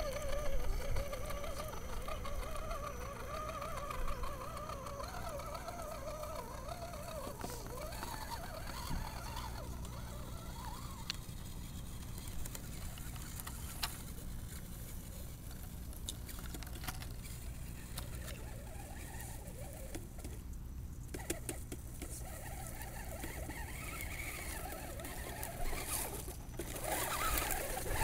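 Radio-controlled scale truck's electric motor and gears whining, the pitch wavering up and down with the throttle. The whine is loudest in the first several seconds, drops away in the middle, and comes back louder near the end.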